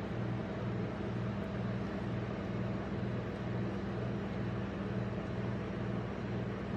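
Steady electrical hum and hiss from a rolled ice cream machine's refrigeration compressor running under the steel cold plate, with a low throb that pulses about twice a second.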